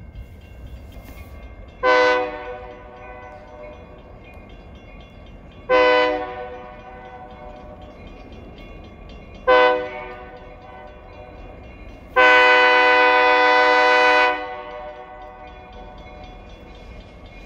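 Freight locomotive's air horn sounding the grade-crossing signal as the train approaches the crossing: two long blasts, a short one, then a final longer blast. Each blast is a chord of several tones.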